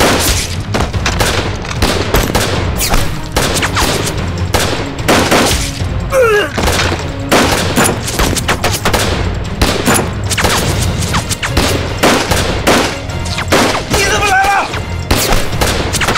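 Dense gunfire from rifles and machine guns, shots coming several a second without a break, over a steady low rumble.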